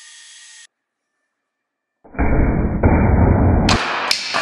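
A powered tap whines as it cuts a thread in a steel bar, then cuts off abruptly. After a short gap comes a sudden loud blast with a heavy low end from a high-current capacitor-bank discharge, turning after about a second and a half into a bright crackle of flying sparks.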